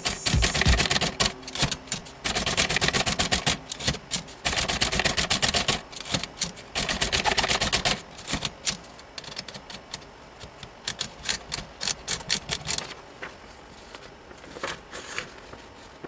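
1937 Remington Rand Deluxe Noiseless manual typewriter being typed on: fast runs of key strikes for the first half, then slower, scattered strikes that thin out near the end.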